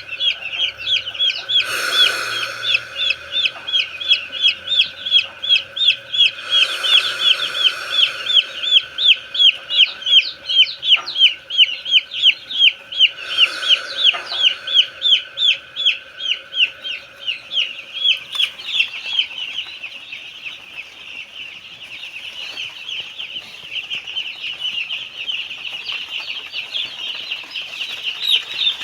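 Young chicks peeping constantly: a dense run of short, high, falling peeps, several a second. Three brief hissing bursts break through in the first half, and the peeping turns quieter and less regular past the middle.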